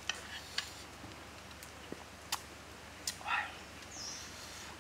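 A metal fork clicks against a small pan a few times as it cuts into a cooked stuffed bell pepper. There is a short chirp about three seconds in.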